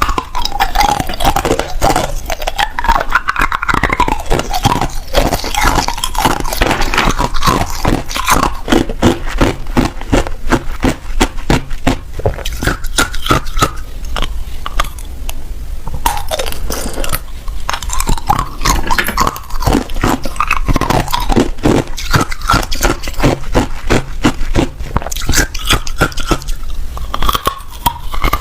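Ice being bitten and chewed close up, a dense run of sharp crunching and cracking that goes on with only brief let-ups.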